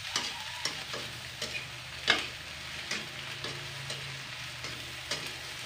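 Green beans and scrambled egg sizzling in hot oil in a wok as a spatula stirs them, with scattered clicks and scrapes of the spatula against the wok, one sharper about two seconds in.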